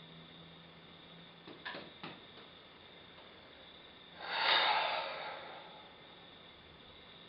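A man's long sigh, a breath out that swells and fades over about a second, a little past the middle. It follows two or three faint clicks.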